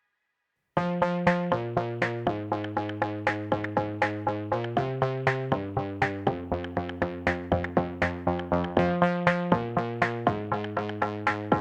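Electronic background music starting abruptly just under a second in: synthesizer chords over a steady drum-machine beat of about four hits a second.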